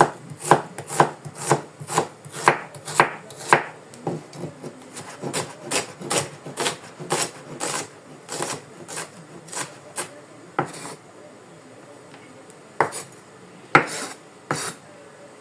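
Kitchen knife chopping onion on a cutting board: even strokes about two a second, then quicker, lighter cuts, then a pause and a few separate strokes near the end.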